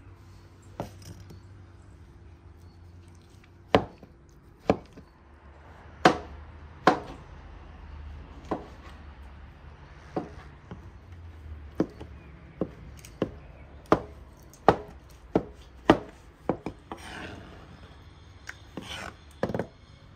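Kitchen knife chopping soft roasted tomatoes on a wooden cutting board: sharp knocks of the blade hitting the board at an irregular pace, roughly one a second.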